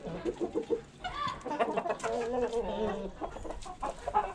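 Aseel cocks clucking: low, wavering calls starting about a second in and lasting about two seconds.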